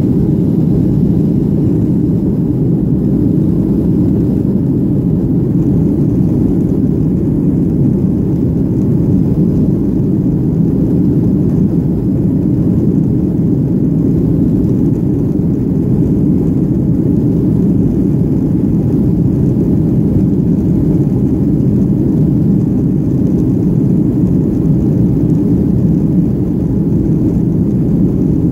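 Cabin noise of a Boeing 737 airliner in flight, heard from a window seat: a steady, even low rumble of engines and airflow that does not change.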